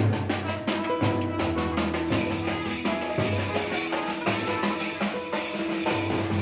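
Music with a drum beat and sustained melodic notes over a bass line.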